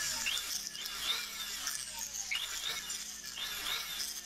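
Handheld rotary tool running with a grey polishing bob held against a silver pocket-watch case back, buffing the metal. Its whine rises in pitch again and again, about twice a second.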